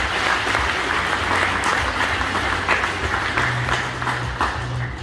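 Audience applauding in a school gymnasium: dense, steady clapping from a large crowd.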